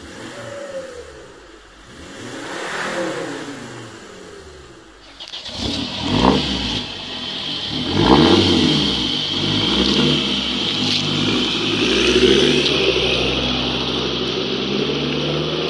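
Volvo S60 D5 2.4-litre five-cylinder turbo diesel with a straight-pipe exhaust (no muffler, silencers or catalytic converter) being revved. For the first few seconds it is heard from inside the cabin, with the revs rising and falling. Then it is heard from close behind the car at the tailpipes, much louder, with two sharp rev blips followed by steady running.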